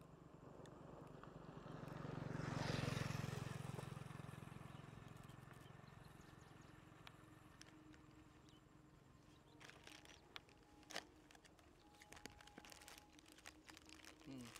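A motor vehicle passing by, its engine noise swelling to a peak about three seconds in and fading away over the next few seconds. From about ten seconds in come scattered light crinkles and clicks of plastic snack bags being handled.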